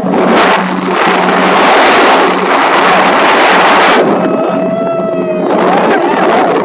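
Motorboat engine humming steadily under loud rushing of wind and water as the boat moves. A held high tone sounds for about a second and a half in the middle.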